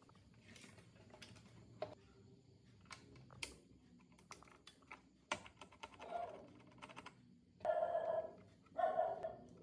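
Irregular light clicks and taps like computer keyboard keys being pressed. Near the end come two louder, short pitched cries about a second apart.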